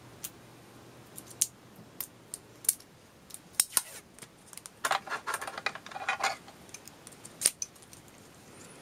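Hands handling a roll of shiny plastic tape and small tools on a desk: scattered light clicks and ticks, with a short stretch of rustling and scraping about five seconds in.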